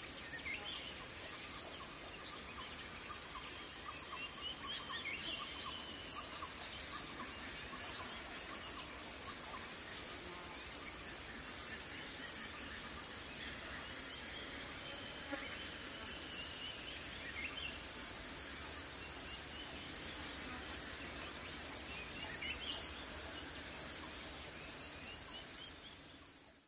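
Forest ambience: a dense, steady, high-pitched chorus of insects, with scattered bird calls over it. It fades out near the end.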